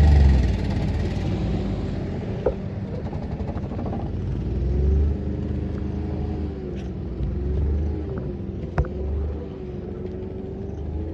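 Motor vehicle running with a heavy low rumble, its engine tone slowly rising and falling, with a couple of brief sharp knocks.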